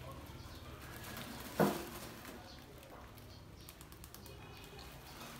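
Rats scrabbling around a metal box trap with grain bedding: small clicks and scratches, with one sharp knock about one and a half seconds in.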